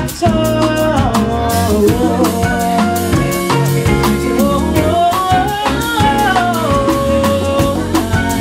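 Live band music with a woman singing lead over drum kit and electric guitar, her voice holding long notes and sliding between them.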